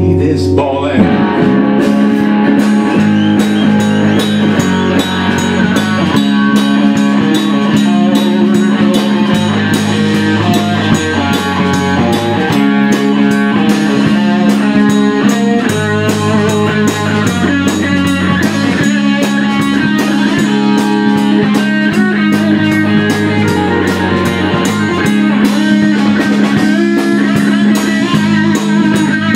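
Live rock band playing an instrumental passage: electric guitar, bass guitar and drum kit, with a steady beat.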